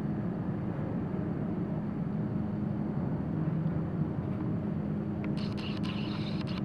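A steady low hum and hiss of background machinery or room noise. About five seconds in, a few short clicks and a brief rustle come in over it.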